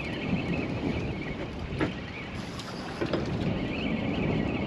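Wind buffeting the microphone over sea water slapping against the hull of a small open boat in choppy water, with a couple of sharp knocks about two and three seconds in.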